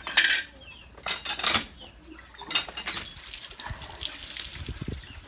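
A cleaver scraping scales off a large trevally in a few short strokes, then tap water pouring and splashing onto the fish as it is rubbed clean by hand, from about three and a half seconds in.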